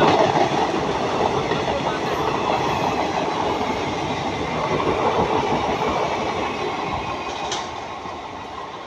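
Coaches of a passing express train rumbling and clattering over the rails, growing gradually quieter as the train moves away.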